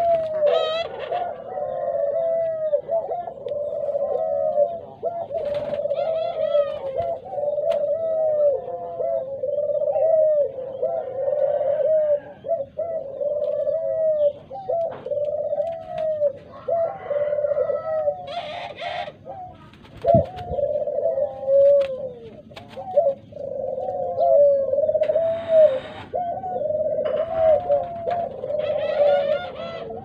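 A flock of captive Barbary doves cooing without pause, many coos overlapping. A few short rustling bursts of wing flapping come in the second half.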